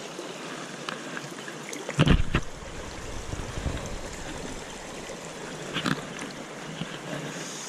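A shallow river runs steadily around a wading angler. About two seconds in there is a loud splash as the hooked ayu comes into the landing net, and a smaller splash follows just before six seconds.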